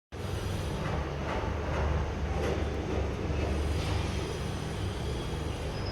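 Steady low mechanical rumble of running machinery, starting abruptly right at the start.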